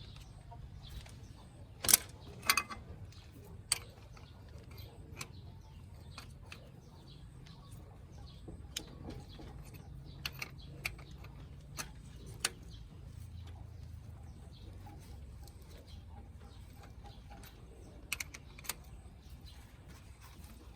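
Irregular sharp clicks and taps over a low steady hum. The loudest two come about two seconds in, and smaller ones are scattered through the rest.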